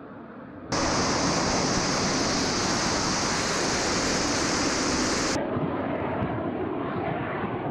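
Loud, steady rush of jet noise and air from a Su-25 attack jet in flight, cutting in suddenly about a second in and dropping off sharply about five seconds in to a quieter jet rumble.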